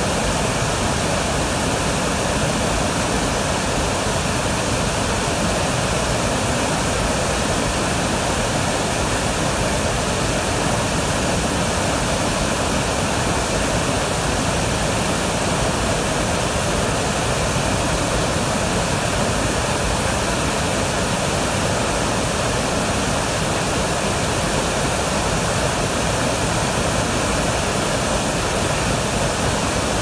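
Large waterfall in flood, a broad torrent of muddy water pouring over a rock ledge onto boulders: a steady, loud rushing of falling water that does not change.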